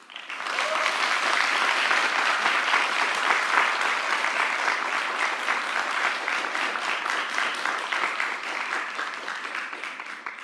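Audience applauding: the clapping builds within the first second, holds steady, then gradually dies away near the end.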